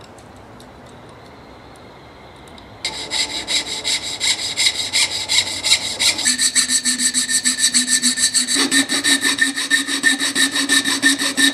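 Quiet handling for a few seconds, then a fine-bladed hand saw cutting into a wooden knife sheath with quick, even back-and-forth strokes. From about halfway through, a flat file rasps at a slot in the wood in the same rapid rhythm.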